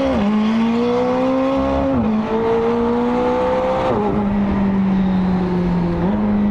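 McLaren 765LT's twin-turbo V8, fitted with IPE downpipes, pulling hard under acceleration: the engine note climbs, drops sharply at an upshift about two seconds in, climbs again and drops at a second upshift about four seconds in, then runs on at a steadier, lower pitch.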